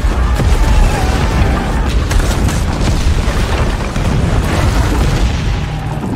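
Film sound effects of dragonfire blasts and a stone castle tower crumbling and collapsing: continuous heavy booming rumble with explosions.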